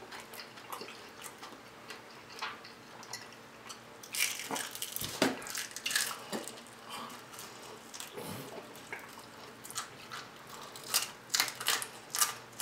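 Close-miked eating sounds of fried chicken: crisp bites and crunching with wet chewing, as scattered sharp clicks and crackles, busiest about four seconds in and again near the end.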